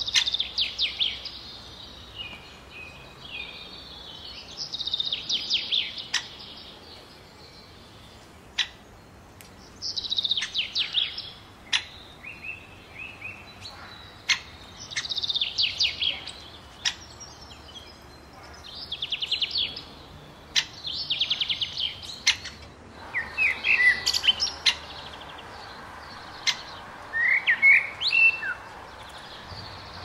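Songbirds singing: bursts of quick, high notes come back every few seconds, with sharp ticks scattered between them. About two-thirds of the way through, a steady hiss rises behind them and the calls turn to shorter rising chirps.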